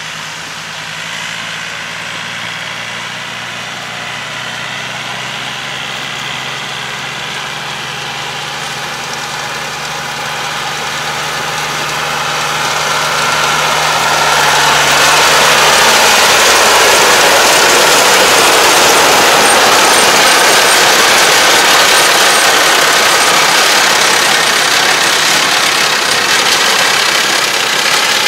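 Yanmar tractor's diesel engine running steadily as it pulls a round baler through rice straw. The sound grows louder as the tractor comes close about halfway through, and a loud, even rushing noise then takes over.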